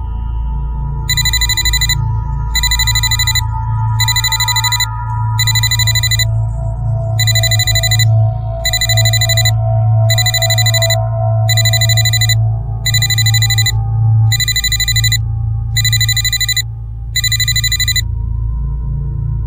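Mobile phone ringtone ringing for an incoming call: twelve short electronic rings about a second and a half apart, stopping about a second and a half before the end. A low, steady background music drone runs under it.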